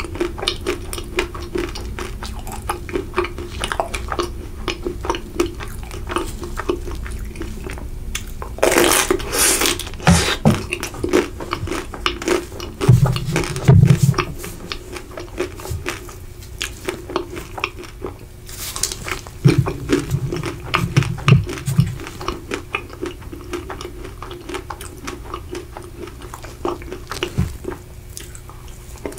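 Close-miked chewing of a chocolate-coated Magnum ice cream bar, the chocolate shell crunching and crackling between the teeth, with a few louder crunches along the way.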